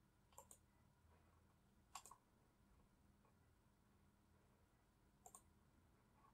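Three faint computer mouse clicks, a couple of seconds apart, each a quick double tick, over faint room hum.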